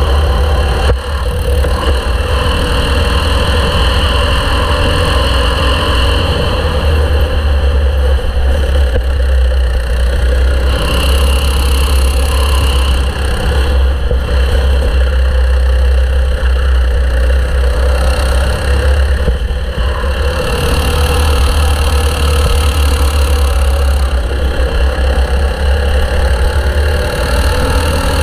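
Racing kart's engine running hard, heard up close from the kart itself, its note rising and falling slightly between corners and straights over a heavy low rumble.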